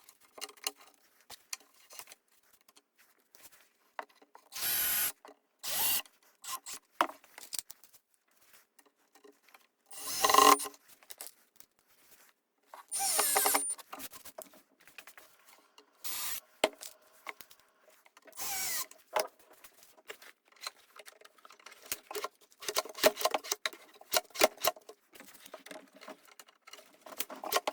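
Cordless drill/driver driving screws in a series of short bursts, each under a second, fastening metal drawer slides inside a plywood cabinet. Small knocks and handling noises fall between the bursts, and a quick run of clicks and taps comes near the end.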